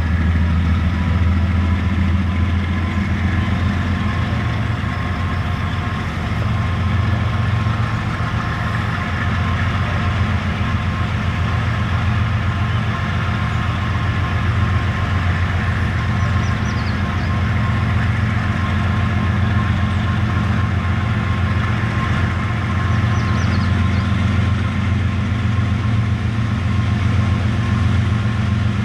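Diesel-electric freight locomotives working as the train approaches: a steady, deep engine drone with a fainter steady whine above it.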